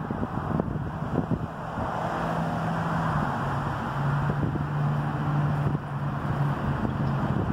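Wind rumbling on a phone microphone, with a low droning hum that wavers slightly in pitch and a few soft knocks from the phone being handled.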